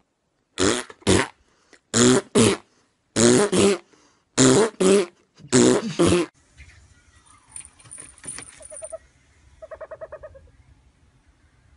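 Short, loud, harsh animal calls in pairs, five pairs about a second apart, followed by faint rustling and a quick run of rapid squeaky pulses near the end.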